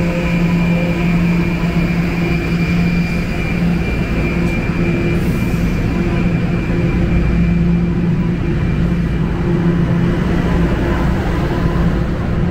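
TTC subway train at a station platform giving off a loud, steady hum with a low tone over a dense rushing noise. The train is starting to pull out near the end.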